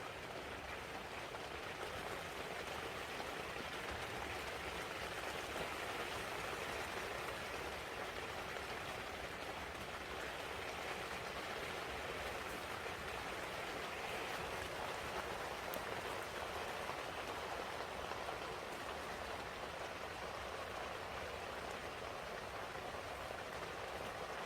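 Rain falling steadily, an even hiss of drops with no let-up.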